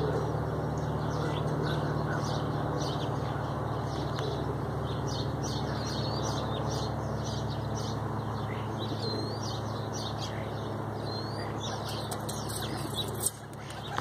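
Steady low mechanical hum with small birds chirping high above it, and near the end a burst of wing claps as a rock pigeon takes off.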